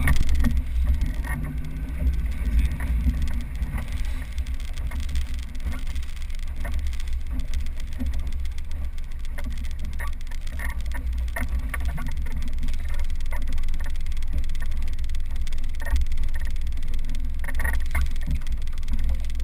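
Steady low rumble of an inflatable boat under way: wind buffeting the bow-mounted microphone together with the boat's engine, with occasional short gusts.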